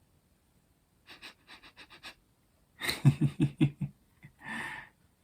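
A man laughing softly: a run of breathy snickers, then a short voiced laugh of about five quick pulses about three seconds in, ending in a breathy exhale.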